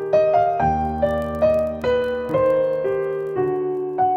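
Background piano music: single melody notes struck about twice a second, each fading, over held lower notes.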